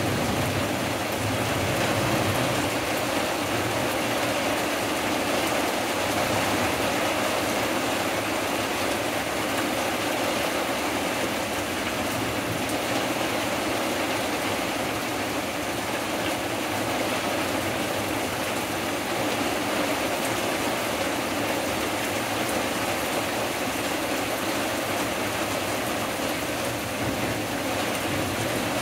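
Heavy thunderstorm rain falling steadily on leafy woodland and a wooden deck, a constant even hiss.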